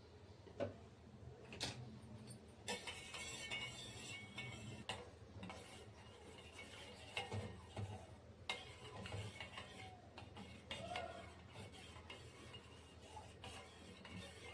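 Faint, scattered clinks and scrapes of a spoon against a pot of milk and black-pepper decoction being brought to the boil, with a short stretch of light hiss a few seconds in.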